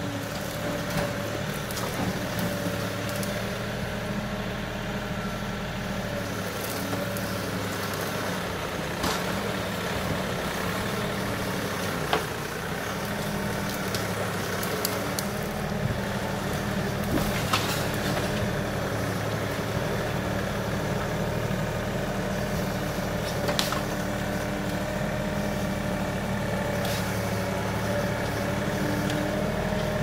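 Kioti NX6010 compact tractor's diesel engine running steadily as the tractor crawls over creek rocks, with a handful of sharp clunks and scrapes. The crunching is the tin shields on the tractor's underside scraping on the rocks.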